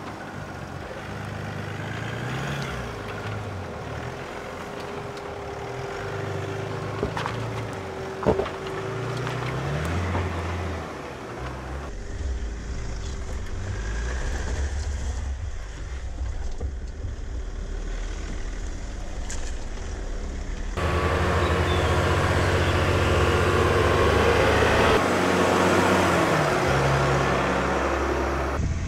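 Mercedes-Benz G-Class SUV engine running at low speed under load as it crawls over rocks off-road, its pitch rising and falling with the throttle, with the sound changing abruptly a couple of times where shots are cut together. A single sharp knock about eight seconds in.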